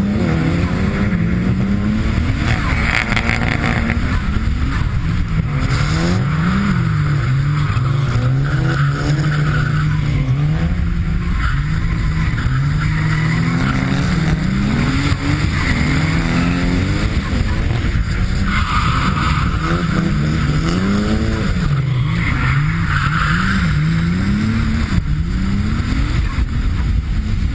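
Turbocharged Nissan RB30 straight-six in a Silvia S13 drift car, revving up and down again and again through a drift. The tyres squeal several times as the car slides.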